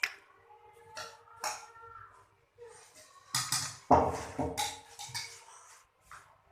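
Metal kitchen utensils and dishes clinking and knocking together, each strike ringing briefly. A louder clatter comes about four seconds in.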